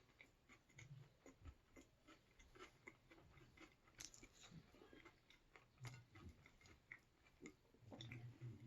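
A person chewing food, faint and close up, with many small irregular clicks and soft crunches from the mouth.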